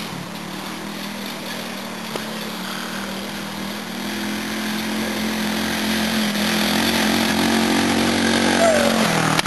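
Small 10 hp go-kart engine running at a steady pitch, growing louder over the second half as the kart drives closer.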